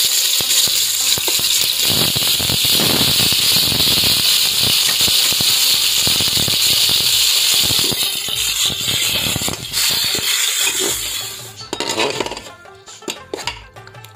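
Beef cubes sizzling loudly in hot oil in a steel pot. The sizzle sets in suddenly as the meat goes in and dies down after about eleven seconds, and a metal spoon then clinks against the pot as the meat is stirred.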